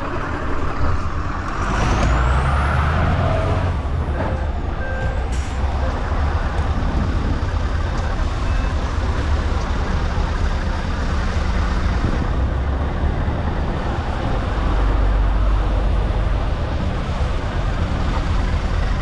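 Scania S770 truck's V8 engine running steadily as the truck backs up.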